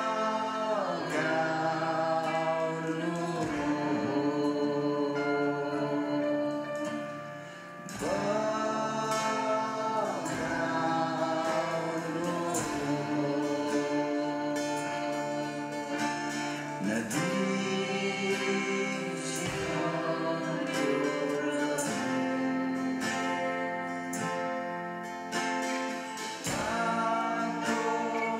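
A live worship song sung in Nepali by a group of mostly female voices together, backed by guitars and keyboard, with long held notes and a brief lull between phrases about seven seconds in.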